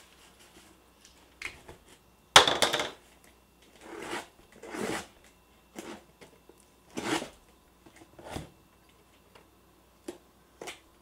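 A cardboard shipping box being opened by hand: a string of irregular scrapes, rustles and tears of cardboard and packing tape, the loudest about two and a half seconds in.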